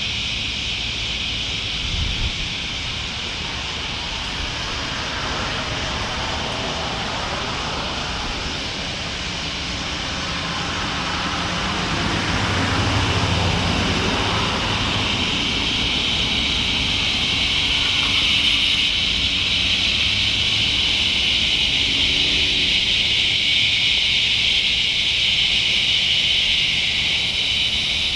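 Chorus of northern dusk-singing cicadas (Tibicen auletes) massed in an oak tree: a steady, high buzzing drone that swells louder a little before halfway. Underneath, a passing engine drones through the middle stretch.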